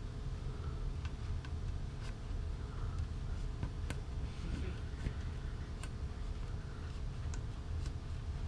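Light irregular clicks and ticks, about one or two a second, from small tools and parts being handled on a fishing rod while a guide is taken off, over a steady low hum.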